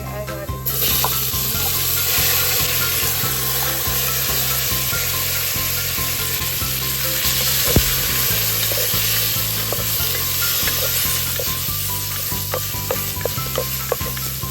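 Food sizzling in a hot pan of melted butter and garlic. The sizzle starts suddenly about half a second in as something is put into the pan, then holds steady, with a few light clicks of a utensil.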